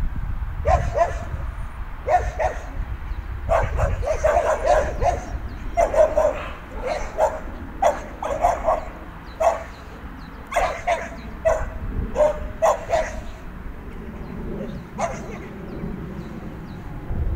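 Young border collie barking repeatedly in short bursts, with the barks stopping a couple of seconds before the end. Wind rumbles on the microphone underneath.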